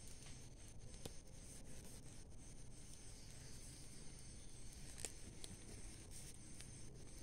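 Faint crackling of a smouldering pile of burning garden leaves: a few soft, scattered ticks and pops over a low hiss.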